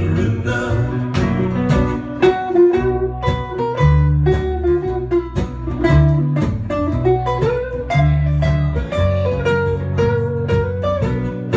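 Live band playing an instrumental passage on acoustic guitars: strummed chords and picked notes over a low bass line.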